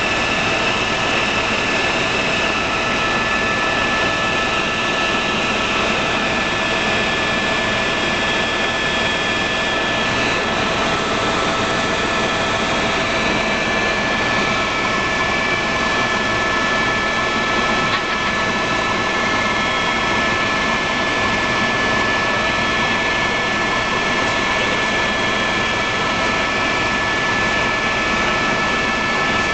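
Tour helicopter in flight heard from inside the cabin: a steady engine whine with several held tones over a constant roar, and the rotor's low, even beat underneath.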